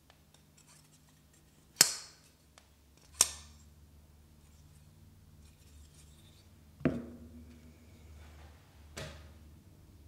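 QSP 149 Swordfish folding knife being worked open and shut in the hand: four sharp metallic clicks of the blade snapping into place, the first two loudest.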